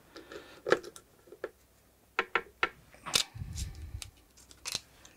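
Scattered small clicks and taps as the plastic and metal parts of a Weller desoldering handpiece are handled and fitted together, with a dull knock a little over three seconds in.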